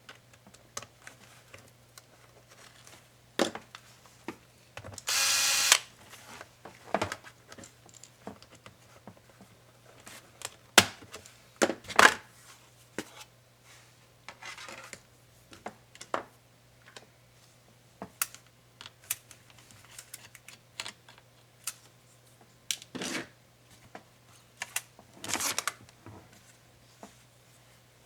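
Scattered clicks and taps of small tools, screws and plastic laptop case parts being handled. Two short whirs of a small motor, most likely a powered screwdriver driving screws out of the case, one about five seconds in and one near the end.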